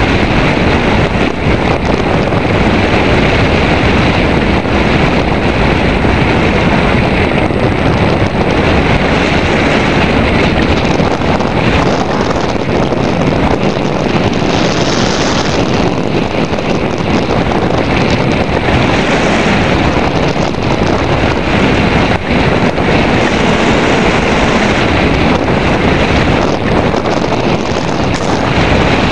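Airflow rushing past the microphone of a camera mounted on a hang glider in flight: a loud, steady wind rush.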